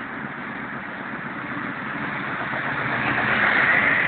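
Class 56 diesel-electric locomotive 56105, with its Ruston-Paxman 16-cylinder engine, accelerating hard under the load of a fully laden log train. Its engine grows steadily louder as it approaches and is loudest as it passes close by near the end.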